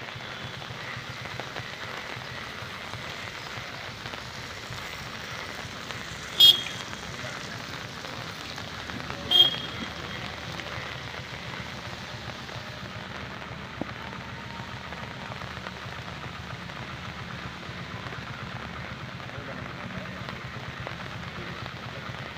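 Steady rain falling on a flooded field, an even hiss throughout. Two sharp taps stand out above it, about six and nine seconds in.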